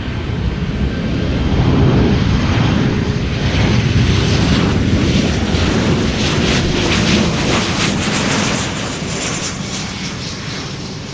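Boeing 787-9's Rolls-Royce Trent 1000 jet engines in reverse thrust on the landing rollout: a crackling roar that swells over the first couple of seconds and fades over the last few.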